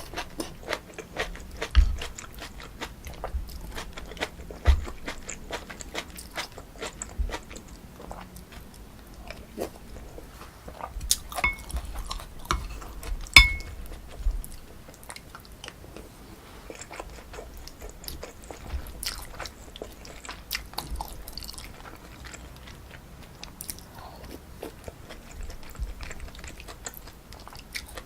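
Close-miked eating of pork kimchi stew with rice: wet chewing and biting with many small crunchy clicks. Near the middle, two sharp ringing clinks of a utensil against a dish, the second the loudest.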